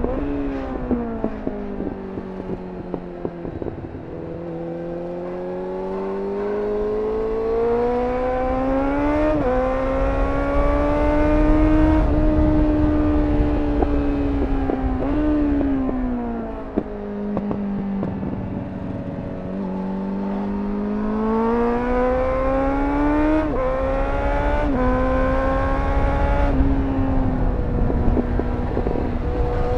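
Suzuki GSF 600 Bandit's 600cc inline-four running through a GPR Furore Nero exhaust while riding. It slows at the start with a few pops on the overrun, then pulls up through the revs, shifting gear about nine seconds in, easing off around fifteen seconds, and accelerating again with quick upshifts in the second half. Wind rushes over the microphone throughout.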